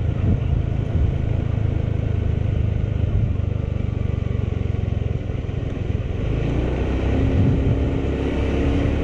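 Motorcycle engine running on the move, a steady low rumble with road and wind noise; about six seconds in, a higher steady hum joins it.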